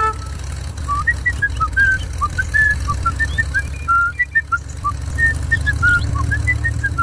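A vehicle engine running steadily, with its low rumble rising and falling a little. Birds chirp over it in short, scattered notes.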